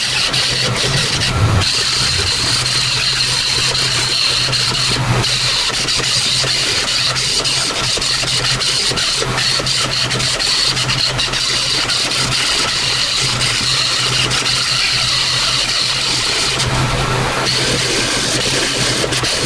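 Handheld pneumatic grinder sanding down welded-up holes in a steel truck firewall, running with a steady high whine. The whine stops briefly about one and a half, five and seventeen seconds in, when the trigger is let off.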